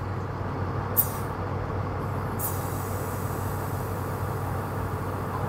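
Steady hum of an idling truck engine with a 12 V portable tire compressor running, broken by short hisses of air from the tire inflator gun as its trigger is pulled, about one second in and again at about two and a half seconds, putting air back into the tire.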